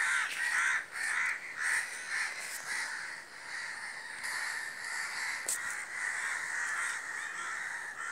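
A large flock of crows cawing all at once, many harsh calls overlapping without a pause: mobbing and alarm calls over a crow chick that has fallen from its nest.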